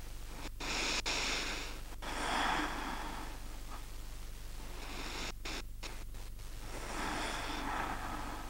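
A woman breathing slowly, with about three soft breaths over a steady low hum.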